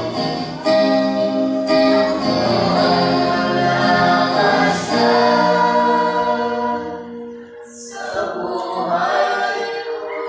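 A small group of men and women singing a hymn in harmony, with electric guitar accompaniment. The singing dips briefly between phrases about three-quarters of the way through, then resumes.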